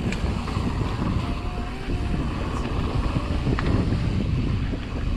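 Wind buffeting the microphone of a mountain biker's action camera over the rumble of knobby tyres on a rough, rutted dirt trail. A few sharp clicks and rattles come from the bike.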